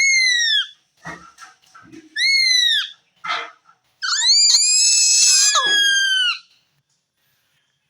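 Indian ringneck parakeet giving loud, high-pitched calls that arch up and then down in pitch: one at the start, another about two seconds in, a short harsher squawk after it, then a longer call of about two seconds.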